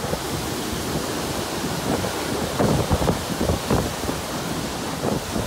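Violent derecho winds buffeting the microphone with heavy, driving rain, in a steady roar that gusts harder in the middle.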